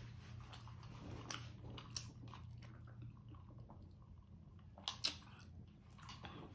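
Close-up chewing and small wet mouth clicks of a person eating, with a couple of sharper clicks about five seconds in, over a faint steady low hum.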